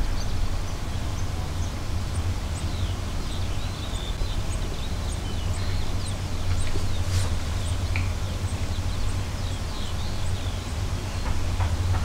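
A steady low rumble with many small birds chirping and ticking high and thin over it, the ticks repeating throughout.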